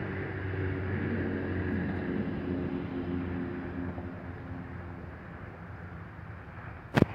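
Lockheed C-130H Hercules turboprop with NP2000 propellers flying past: a steady propeller drone with a few held tones, swelling over the first couple of seconds and then slowly fading. A sharp click near the end.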